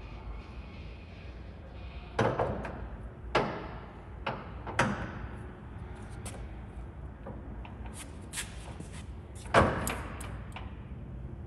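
Heavy metallic clunks from the headstock gear-change levers of a large engine lathe as they are shifted and the chuck is turned by hand. There are several sharp clunks, each ringing briefly, the loudest one near the end, over a steady low hum.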